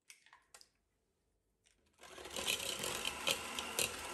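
Electric hand mixer switched on about halfway through and running, beating an egg into creamed butter and sugar, with the beaters knocking against the plastic bowl. A few faint clicks come before it starts.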